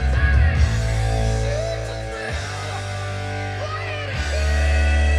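FM radio music with guitar playing through a stereo receiver's front speakers and a powered subwoofer, with a heavy steady bass. It gets louder about four seconds in.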